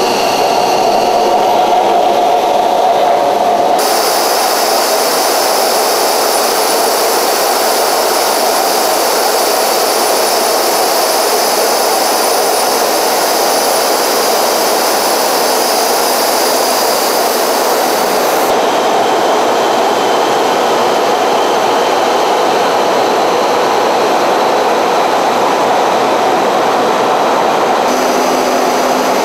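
Steady jet aircraft engine and airflow noise heard from inside the aircraft, with several high steady whines over the roar. The sound changes abruptly about four seconds in, again around the middle and once more near the end.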